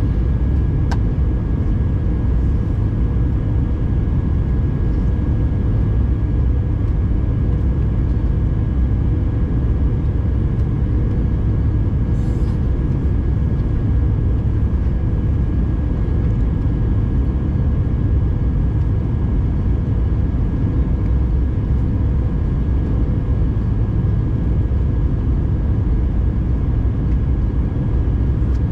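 Steady cabin noise of an Airbus A319 in flight, heard from a window seat: a dense, even rumble of engines and airflow with a faint steady hum above it.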